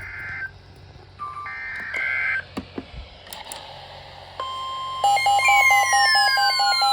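Emergency Alert System tones: short, buzzy data-burst screeches, then a steady single alert tone from about four and a half seconds in. About a second later a louder, rapidly pulsing beep and long falling electronic sweeps join it, marking the start of the next warning.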